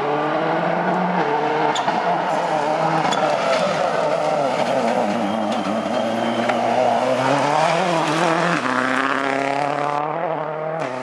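World Rally Car's turbocharged four-cylinder engine revving hard as the car takes a hairpin and accelerates away. The pitch climbs, dips and climbs again, with a sharp drop near the end at a gear change.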